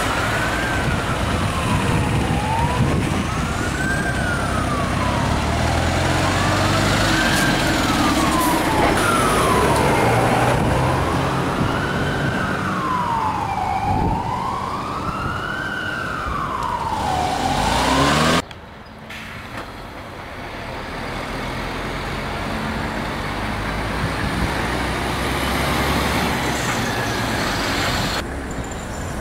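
Fire engine siren wailing, rising and falling about once every three and a half seconds over engine and traffic noise. It cuts off suddenly about two-thirds of the way through, leaving only road traffic.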